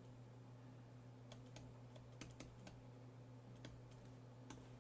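Faint, irregular ticks of a stylus tapping on a tablet screen as words are handwritten, over a low steady hum.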